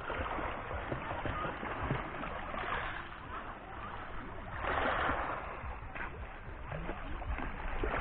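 Small waves lapping onto a pebble shore, water washing and hissing over the stones, with louder washes about three and five seconds in.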